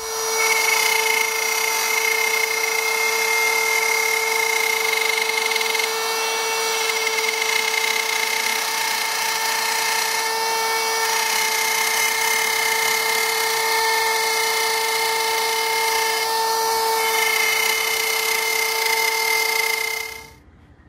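DeWalt plunge router with a 1/4-inch straight bit running at full speed, cutting a 3-inch circle through American chestnut on a circle jig: a loud, steady high-pitched motor whine mixed with the rasp of the bit in the wood, cutting off about twenty seconds in.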